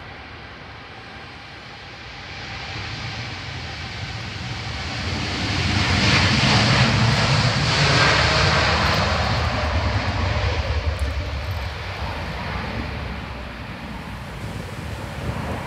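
Jet airliner taking off: its engines at takeoff power swell to a loud roar as it speeds down the runway past, loudest about six to eight seconds in, then fade slowly as it lifts off and climbs away.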